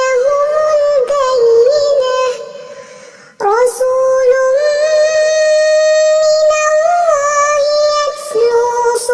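A single high voice chanting Quran recitation in a melodic style, drawing out long ornamented notes. It fades and breaks off briefly about three seconds in, then resumes with one long held note that wavers near the end.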